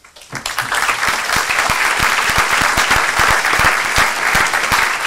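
Large audience applauding, many hands clapping at once; the applause builds within the first second, then holds steady.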